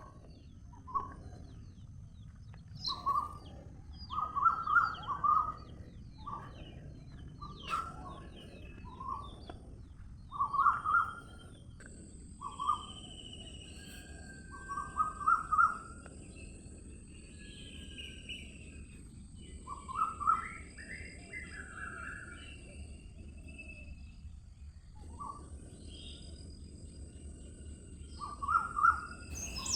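Songbirds chirping and calling, short bursts of chirps every second or two, over a steady low background hiss.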